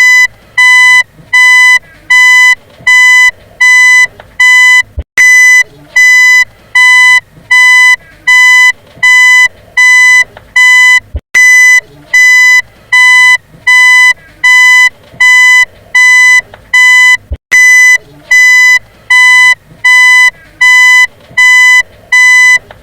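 Vehicle reversing alarm beeping: one steady high beep repeated evenly, about one and a half times a second. A brief click about every six seconds marks where the recording loops.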